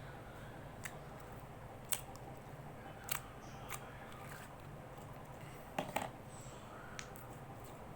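Slime being played with by hand, giving scattered sharp clicks and pops, about seven of them, the loudest about two seconds and six seconds in, over a steady low hum.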